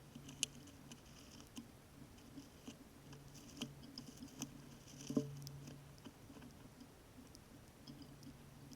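Squirrel chewing and cracking seeds: faint, irregular small crunching clicks, with a louder crack a little past five seconds in.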